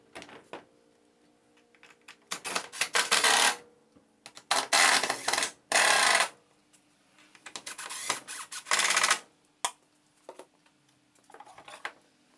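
Cordless drill-driver driving screws to fix a wooden wall cabinet, in four short bursts of about a second each, with a few knocks from handling the cabinet against the wall.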